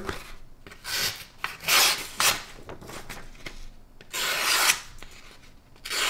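A very sharp, full-flat-ground folding knife blade slicing through a sheet of paper: several separate hissing cuts a second or two apart, with the paper rustling in between.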